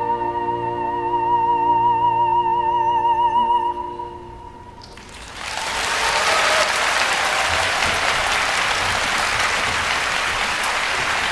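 Soprano holding the final high note with a wide vibrato over a sustained orchestral chord, ending about four seconds in. After a brief hush, audience applause starts about five seconds in and keeps on.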